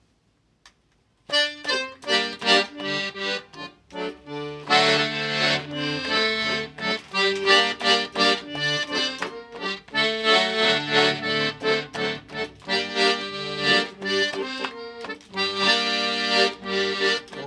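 Accordion playing the instrumental introduction to a hymn, starting about a second in: sustained chords with a melody above and bass notes beneath.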